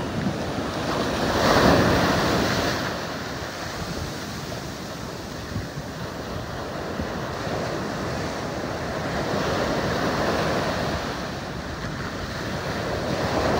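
Ocean surf breaking and washing up a sandy beach, one wave crashing loudest about two seconds in and further waves washing in later. Wind buffets the microphone throughout.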